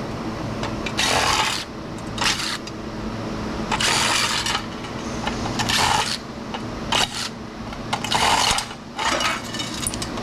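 Aluminum scrap being taken apart by hand: about seven short metallic clanks and scrapes at irregular intervals, over a steady machine hum.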